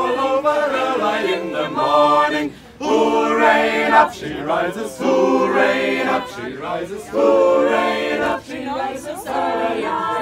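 A group of people singing together without accompaniment, in held phrases a few seconds long with short breaks between them.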